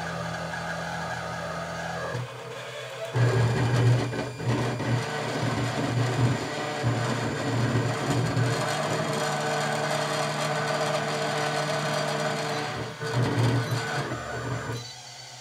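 Anycubic i3 Mega 3D printer making an abnormal steady buzzing hum of several held tones. It gets louder about three seconds in and drops back near the end. It is the sign of a fault of unknown cause that keeps the printer from moving correctly.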